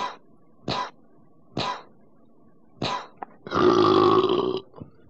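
A person's non-speech vocal sounds, burp- or cough-like, heard on an old cassette recording: four short bursts roughly a second apart, then a longer, louder voiced one about three and a half seconds in.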